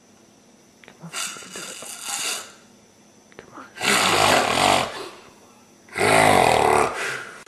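A person snoring heavily: a quieter rasping breath about a second in, then two loud, buzzing snores about two seconds apart.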